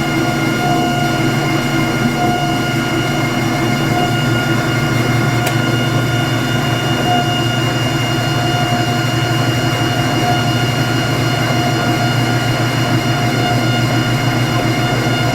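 Whirlpool LSR8133HQO direct-drive top-load washer running with a constant high-pitched whine over a steady low hum. The whine is the fault being diagnosed, traced to a worn, scratched bearing in the tub support and basket drive.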